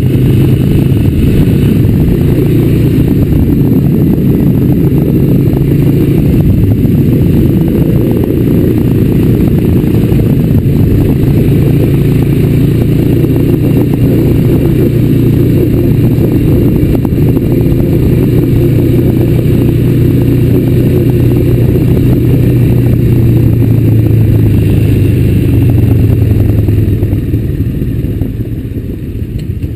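A 2004 Honda Recon ATV's single-cylinder engine running steadily under throttle while the quad is ridden along a dirt trail. The engine eases off near the end.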